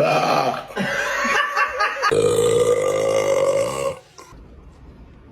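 A woman burping loudly: a rough, uneven burp of about two seconds, then straight after it a long, steady, pitched burp of about two seconds that stops about four seconds in.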